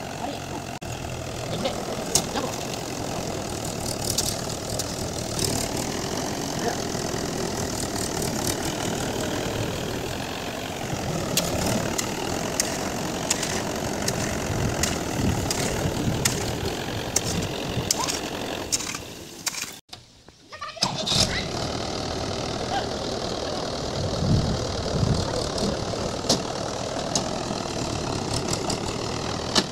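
Mahindra tractor's diesel engine running steadily at low speed, with a few sharp clicks and knocks over it. The sound drops out for about a second roughly two-thirds of the way through, then the engine carries on as before.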